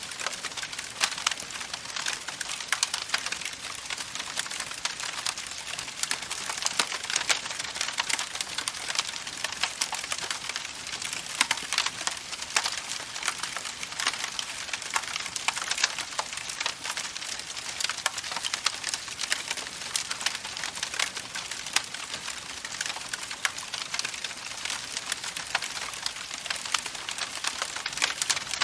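Campfire burning, wood crackling and popping in a dense, steady stream of sharp snaps over a soft hiss.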